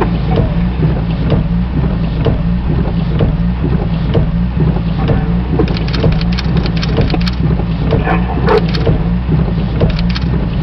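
Steady low rumble of a running vehicle, with scattered light clicks and rattles over it.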